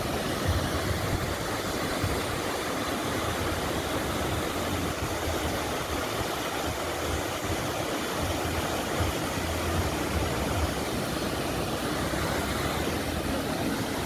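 Steady rushing of a waterfall cascading over rock ledges into a pool, with a low rumble that rises and falls underneath.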